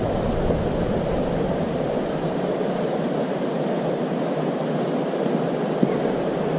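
Mountain stream water rushing steadily over rocks, an even, unbroken hiss with a thin steady high tone above it.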